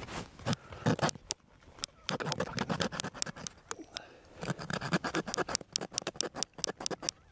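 Small hand saw cutting through a roe buck's breastbone to split the sternum. It makes quick rasping back-and-forth strokes in runs, with short pauses between them.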